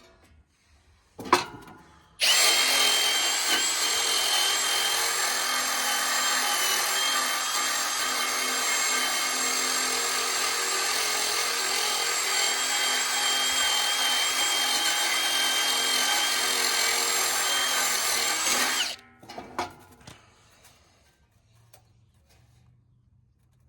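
Drill spinning a wire brush against the old condenser fan motor's shaft, scrubbing it clean so the stuck fan blade will slide off. It starts about two seconds in, runs steadily with a rough scraping hiss and a fixed tone, and stops abruptly a few seconds before the end.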